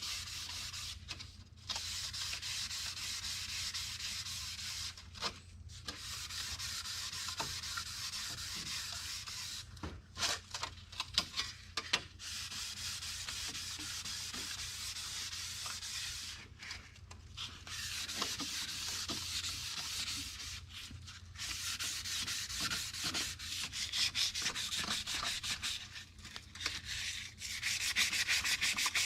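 Sandpaper rubbed back and forth over stainless steel car trim to work out scratches, in runs of strokes with short pauses between them, quickening and getting louder near the end. A low steady hum runs underneath.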